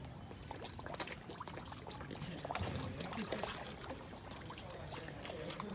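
Many koi crowding and thrashing at a pond's surface, with a constant patter of small splashes.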